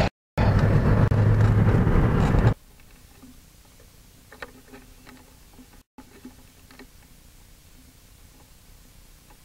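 Steady road and engine noise from a moving car, heard from inside, with a low hum; it cuts off abruptly about two and a half seconds in, leaving a faint hiss with a few soft clicks.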